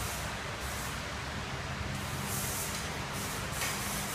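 2016 Cummins ISX15 inline-six diesel engine running steadily, with a few short bursts of hiss.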